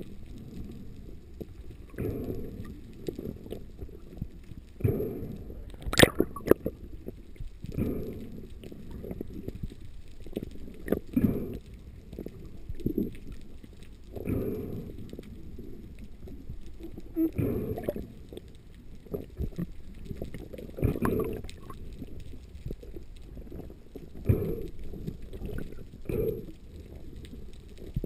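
Muffled underwater noise from a spearfisher swimming, heard through a camera's waterproof housing. The water noise swells in surges about every three seconds, with a sharp click about six seconds in.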